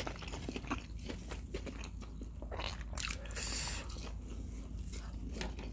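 Close-miked chewing and biting of fried fast food: many small crunches and mouth clicks, with a short crackly rustle about three seconds in.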